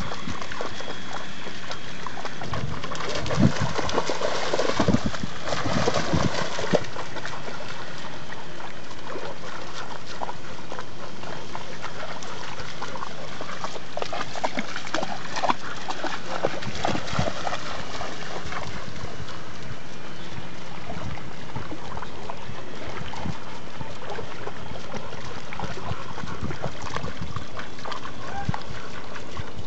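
Shallow sea water splashing and sloshing as a rottweiler wades and lunges after fish, over a steady hiss. The splashes come in clusters, once a few seconds in and again about halfway through.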